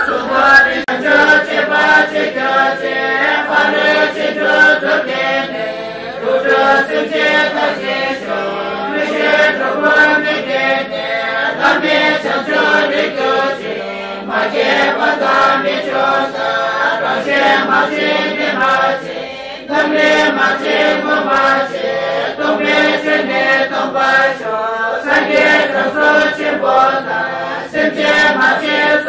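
Tibetan Buddhist monks chanting prayers, a continuous recitation in men's voices.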